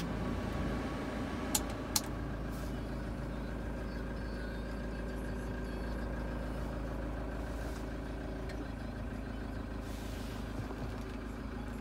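Toyota Hilux four-cylinder turbo-diesel idling steadily, heard from inside the cab, with the air-conditioning fan blowing. Two light clicks about one and a half and two seconds in.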